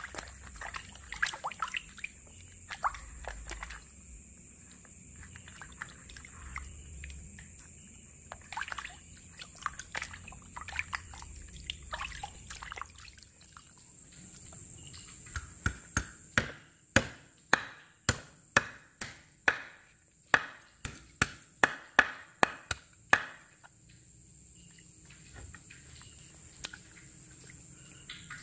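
Hands sloshing a whole catfish in a plastic basin of water, with splashing and dripping for the first dozen seconds. About halfway through comes a run of some twenty sharp knocks, two or three a second for about eight seconds: a kitchen knife chopping the fish on a wooden board.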